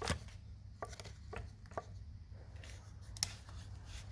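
Handling noise from chainsaws being moved and handled: a few small clicks and knocks, the sharpest about three seconds in, over a steady low hum.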